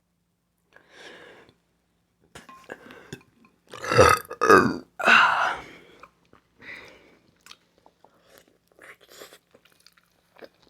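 A woman burping loudly, three times in quick succession about four seconds in, with faint chewing and mouth sounds before and after.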